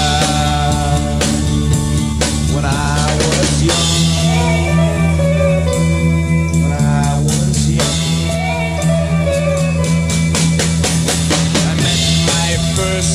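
Instrumental break of a 1960s psychedelic rock song: drum kit and electric guitar playing over a steady bass, with no lead vocal.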